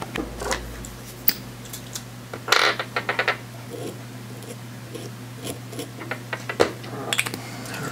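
Small handling clicks and scratches, with a denser scratchy cluster about two and a half seconds in and a few more clicks near the end, over a steady low hum.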